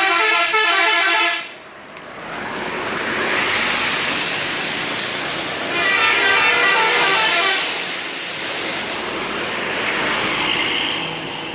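Intercity bus 'telolet' musical air horn playing a quick multi-note tune, which cuts off about a second and a half in, followed by the bus passing with a rushing engine and tyre noise that rises and falls. A second run of horn notes sounds about six to seven and a half seconds in.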